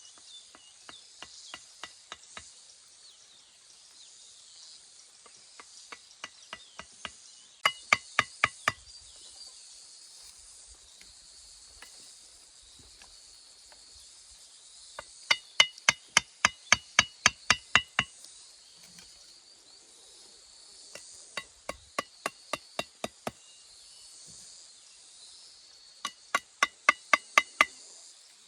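Quick runs of hammer blows on metal, about four a second, each blow ringing with the same metallic tone. The runs come several times, the loudest about halfway through, over a steady high hiss.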